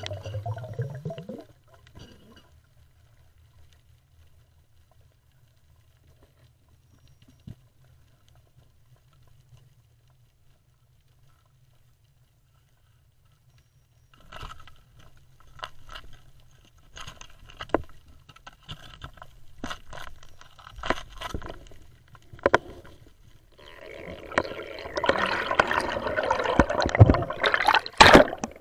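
Underwater sound through a diving camera's housing: a brief rush of water, then a long quiet stretch with a low hum. From about halfway, scattered clicks and knocks come as a hand and spear work among rocks and seagrass. Near the end there is a loud rush of bubbles and water as the diver ascends.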